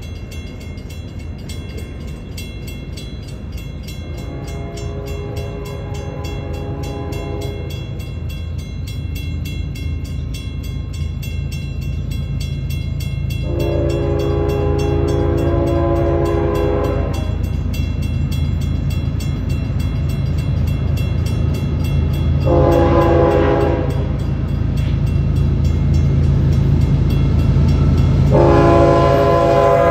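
Union Pacific diesel locomotive horn sounding the grade-crossing signal: two long blasts, a short one, then a final long one. Underneath, the rumble of the lead diesel locomotives grows louder as the train approaches.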